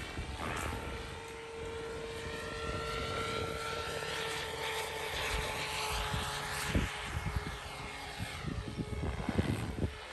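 Radio-controlled helicopter flying, with a steady whine from its motor and rotor and higher sounds sweeping up and down in pitch as it manoeuvres. A few low bumps come near the end.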